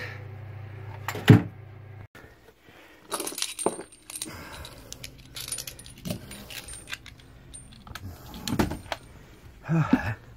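Metallic clinks and rattles of tools and hardware being handled, with scattered sharp knocks, the loudest about a second in.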